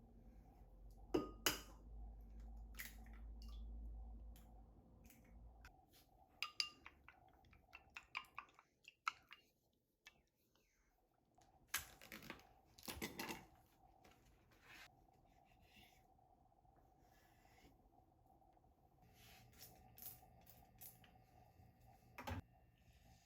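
Faint, scattered clinks and clicks of kitchen utensils and dishes being handled, in a cluster around the middle and once more near the end. A low hum sits under the first few seconds.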